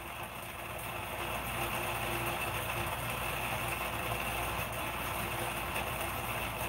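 Steady low mechanical hum with a hiss, even throughout, with no distinct events.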